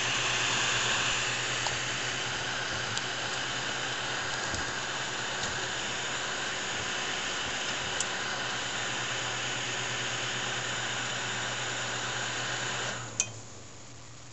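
Desktop PC cooling fans, the graphics card fan among them, running with a steady whirring and a low hum. Near the end there is a click and the noise drops sharply to a quieter level.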